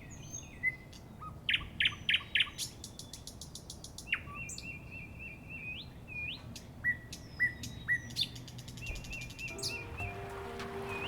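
Birds singing and calling: short chirps, whistled up-sweeping notes and quick repeated-note trills from several birds.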